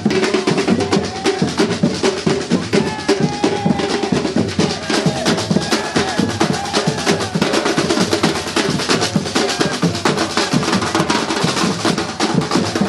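Music driven by busy, rapid drumming, with a melody line above the drums.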